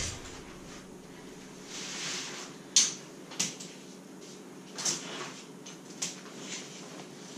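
Long shock-corded tent poles being handled and flexed, with several sharp clicks and knocks spaced a second or so apart and a soft rustle about two seconds in.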